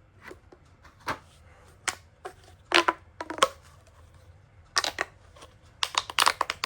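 Ribbed plastic pop tube being stretched and squeezed, giving a string of irregular crackles and sharp pops, loudest in a cluster about three seconds in and again near the end.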